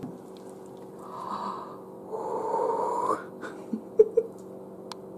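Two long, breathy exhalations from children leaning over a bowl of slime, with a single click about four seconds in, over a faint steady hum.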